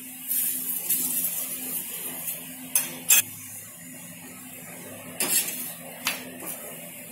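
Flat steel spatula scraping and clacking against an iron tawa as a ghee-brushed thepla is pressed and turned while it roasts. The sharpest clacks come twice about three seconds in, then again around five to six seconds in. A faint sizzling hiss of ghee on the hot griddle is heard in the first two seconds.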